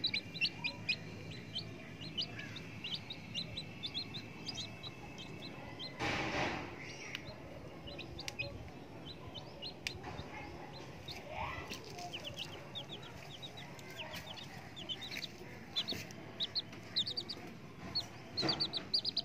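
Baby chicks peeping: many short, high chirps, coming in quick runs.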